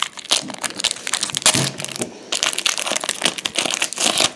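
Foil wrapper of an Upper Deck MVP hockey card pack crinkling and tearing as hands work it open: a rapid run of crackles with a brief pause about two seconds in.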